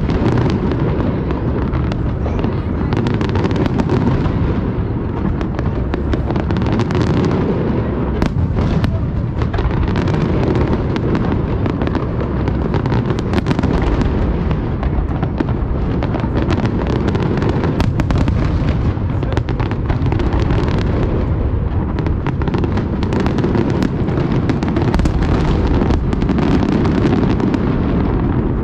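Aerial fireworks going off in a dense, unbroken barrage: overlapping low booms with many sharp cracks on top, and no pause.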